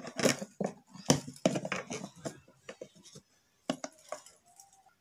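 Metal wire whisk clinking against a steel pot while beating curd: a quick, irregular run of clicks and scrapes that stops about three seconds in, followed by a few more taps.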